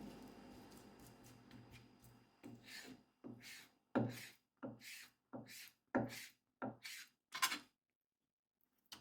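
Knife strokes cutting through food on a wooden cutting board: about ten short rasping cuts, roughly two a second, after a low hum that fades over the first two seconds.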